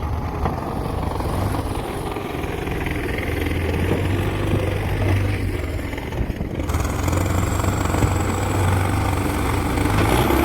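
An engine running steadily throughout, with an abrupt change in the sound about two-thirds of the way through.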